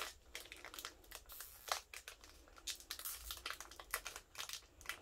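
Foil wrapper of a Pokémon trading card booster pack crinkling in the hands as it is worked at to get it open, in short irregular crackles.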